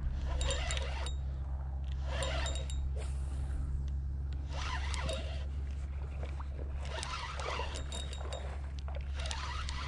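Spinning reel being cranked in spurts to bring in a hooked fish: five short bursts of scraping, clicking reel noise, roughly every two seconds, over a steady low rumble.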